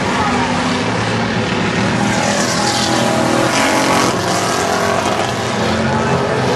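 A pack of V8 stock cars racing on an oval, many engines running together at speed. The sound grows brighter as the cars pass close by, about two to four seconds in.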